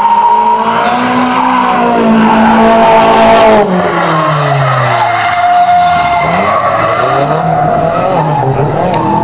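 Nissan S13 drift car sliding through corners, its engine revs climbing, dropping and climbing again as the throttle is worked, with tyres squealing and skidding. A loud stretch of tyre noise cuts off suddenly about three and a half seconds in.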